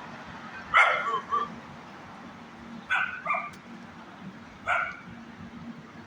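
Small dog barking in three short bouts of high, sharp barks, about a second in, three seconds in and near five seconds, the first two each followed by a quick extra bark or two.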